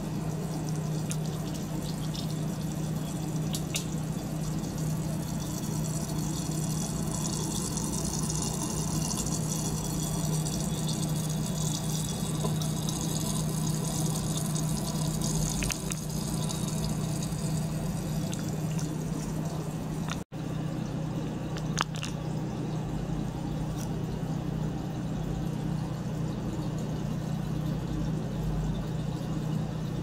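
Small circulation pump running with a steady low hum, its water jetting from silicone tubing into a beaker of water with continuous splashing and bubbling.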